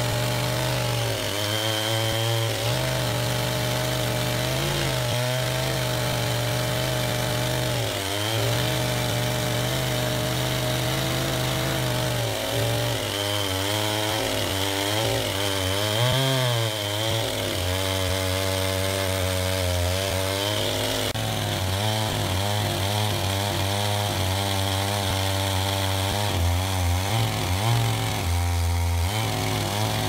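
Two-stroke petrol chainsaw cutting into a large log at full throttle, its engine note sagging and recovering again and again as the chain bites into the wood.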